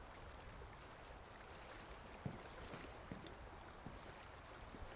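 Faint trickling water ambience, with a few soft ticks or drips, the clearest about two seconds in.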